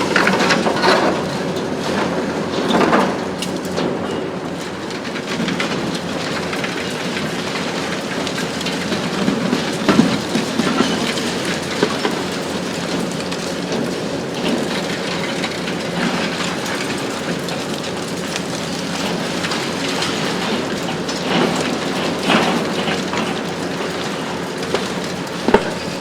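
Hitachi ZX 870-3 XXL long-front demolition excavator working: its diesel engine runs steadily under irregular cracking and clattering of concrete and debris being crushed and falling, with a sharp crack near the end.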